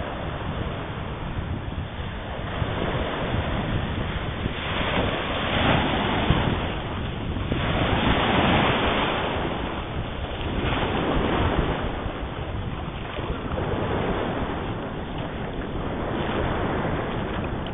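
Wind buffeting the microphone in an 11–14 knot breeze, with constant low rumble, over the rush of surf. Waves wash in and swell louder about every two to three seconds.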